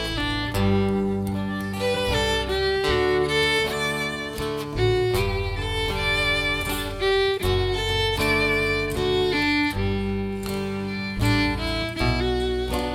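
A live band playing an instrumental passage, a fiddle leading with wavering held notes over guitar and a steady bass line.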